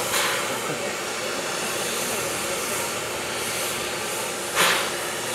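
Steam locomotive made up as Thomas the Tank Engine, standing and hissing steam steadily, with two short, louder bursts of steam: one at the start and one near the end.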